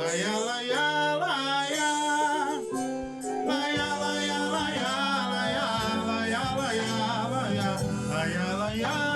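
Forró music playing live: an accordion-led melody over bass and percussion, with singing.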